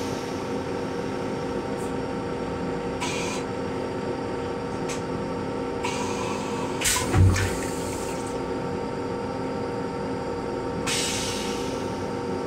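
An M7 railcar toilet's flush mechanism finishing its cycle: several short hissing spurts a few seconds apart, the loudest about seven seconds in with a deep thump. The car's steady electrical hum runs underneath.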